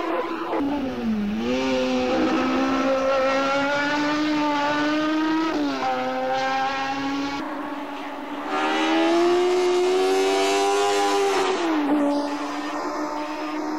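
BMW Group 5 race car's 2-litre M12/7 four-cylinder engine under full throttle. Its note climbs steadily through each gear and drops sharply at each gear change: about a second in, near the middle, and near the end.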